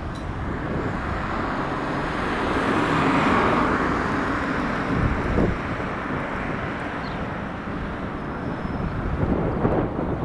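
Jet noise from the Ilyushin Il-62MGr's four rear-mounted Soloviev D-30KU turbofans on final approach: a steady rumble that swells about three seconds in, with low gusty buffeting underneath.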